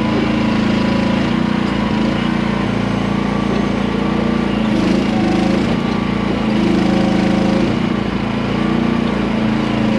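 Small gas engine of a QH13R micro mini excavator running at steady throttle, its note dipping and recovering several times as the machine works.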